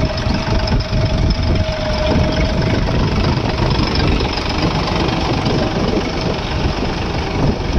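John Deere 5210 tractor's three-cylinder diesel engine running steadily while its tyres churn and splash through deep water and mud. A thin steady whine over the engine fades out about three seconds in.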